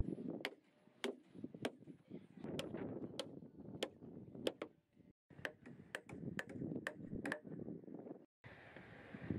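Hammer driving nails into timber wall studs: a run of sharp strikes, about two a second, broken off abruptly twice where the shot changes.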